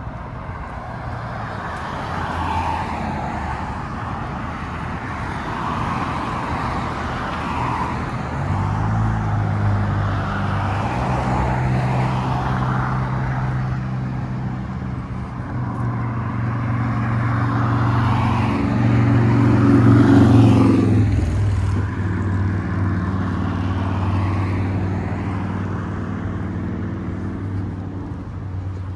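Road traffic passing on a bridge roadway: a steady hiss of tyres, and one vehicle's engine hum that builds from about a third of the way in, is loudest about two-thirds through, and drops in pitch as it goes by.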